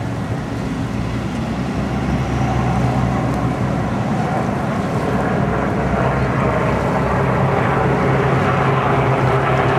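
NY Waterway ferry's engines running with a steady low hum over churning propeller wash, getting louder about two and a half seconds in.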